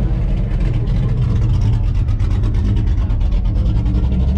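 Car engine running steadily and loudly, with a rapid pulsing exhaust beat.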